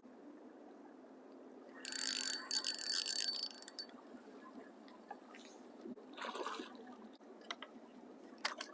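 Fishing reel's gears whirring with rapid ratchet-like clicking for about two seconds. A fainter, shorter rattle follows around six seconds in, then a few sharp clicks near the end.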